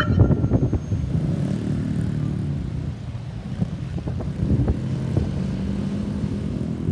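A road vehicle's engine running close by, a steady low hum, with wind buffeting the microphone; no siren is sounding.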